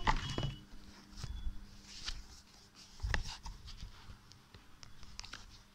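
Scattered handling noises: light knocks and clicks, with one heavier dull thump about three seconds in.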